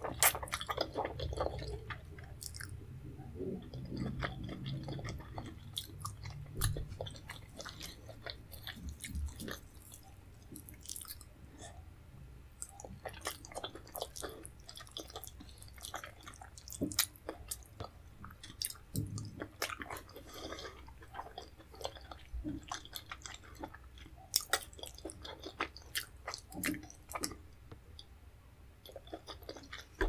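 Close-miked chewing of leafy vegetable soup eaten by hand, with many small mouth clicks and smacks throughout.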